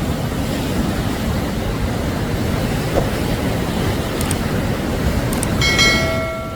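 Floodwater rushing in a loud, steady roar of water noise. Near the end a steady pitched tone sounds for about a second.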